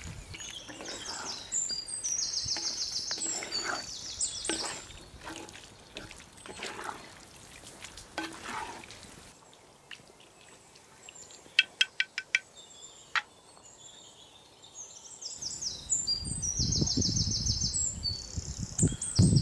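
Small birds calling in rapid high trills, over wet stirring and scraping of a wooden spatula through chicken curry in a clay pot. A few sharp ticks come in the middle.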